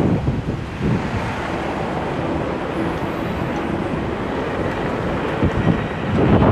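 Wind buffeting the microphone on a moving electric scooter: a steady low rumble that swells in gusts, loudest near the end.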